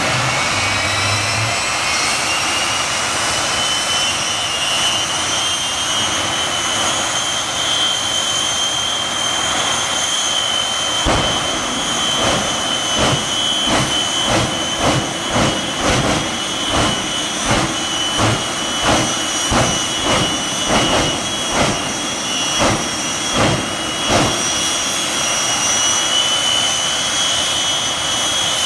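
Shockwave jet truck's three jet engines running, a high steady whine that climbs in pitch over the first few seconds and then holds. From about a third of the way in come about twenty loud, deep bursts, roughly one and a half a second, as flames blast from the stacks. Then the steady whine carries on alone.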